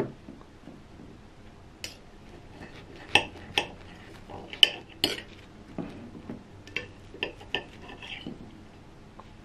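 Knife and fork cutting through soft pancakes on a plate, the metal clicking and scraping against the plate in irregular sharp knocks.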